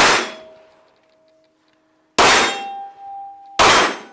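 Three loud metallic clangs, at the start, about two seconds in and about three and a half seconds in. Each leaves a ringing tone that hangs on for a second or so, each at a different pitch.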